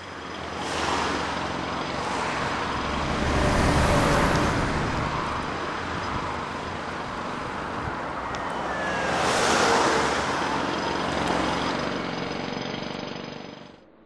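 Road traffic: a steady wash of car noise with two vehicles passing close, about four and nine and a half seconds in. It cuts off suddenly near the end.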